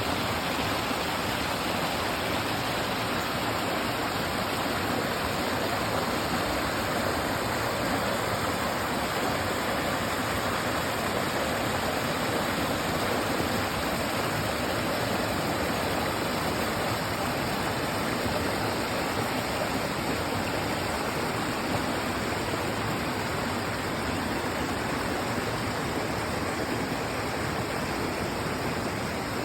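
Clear mountain stream rushing over rocks, a steady, even sound of flowing water.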